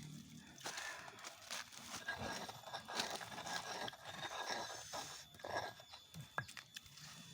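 A person chewing raw vegetables: irregular crunching and mouth clicks, with some scraping.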